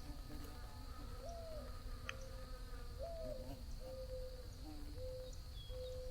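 Bees buzzing steadily, with a bird giving about five low, hoot-like cooing notes roughly a second apart; the first two notes rise and fall, the later ones are flat.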